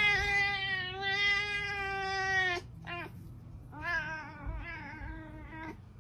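Ginger domestic cat meowing in long, drawn-out yowls. One long call ends about two and a half seconds in, a short one follows just after, and a wavering call runs from about four seconds in until near the end.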